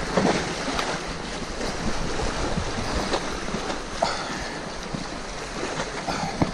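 Sea waves washing against shoreline rocks, a steady rushing surf with wind buffeting the microphone. A few sharp clicks stand out over it, about three seconds in, at four seconds and near the end.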